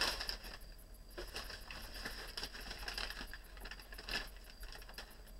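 Newspaper rustling and crinkling as it is handled and unfolded, with scattered light clicks and a couple of louder handling sounds.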